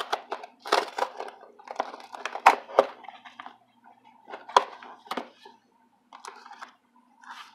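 Cardboard shipping box handled and opened by hand: flaps bending and cardboard scraping and crinkling in irregular bursts, with a couple of sharp knocks about two and a half and four and a half seconds in.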